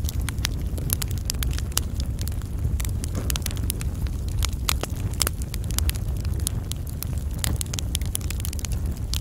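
Burning wood fire crackling: many sharp, irregular pops and snaps, several a second, over a steady low rumble.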